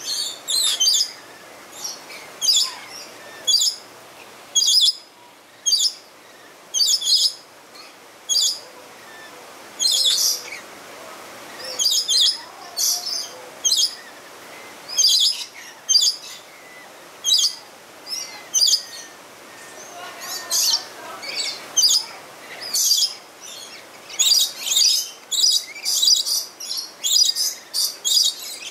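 Rainbow lorikeets calling: short, shrill screeches, about one or two a second, coming faster and in clusters near the end.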